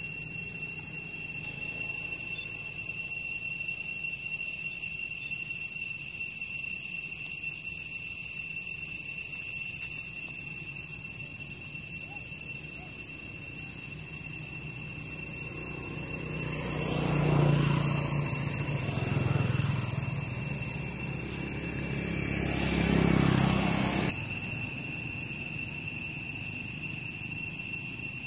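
Engine noise of a motor vehicle passing, swelling three times in the middle and then cutting off abruptly, over a steady high-pitched whine that never stops.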